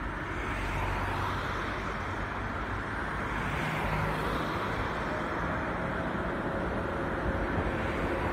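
Street traffic noise as a car passes close by about four seconds in, while an articulated electric tram runs along the track toward and past, its rolling noise and faint steady hum growing louder toward the end.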